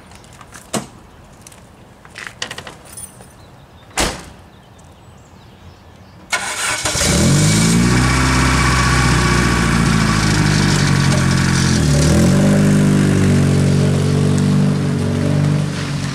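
A few clicks and a single sharp knock, then about six seconds in a car engine starts and runs loudly, rising in pitch as it revs. The pitch dips briefly about twelve seconds in, then the engine pulls on.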